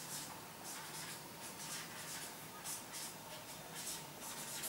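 Marker pen writing on a whiteboard: a run of faint, short strokes, two or three a second.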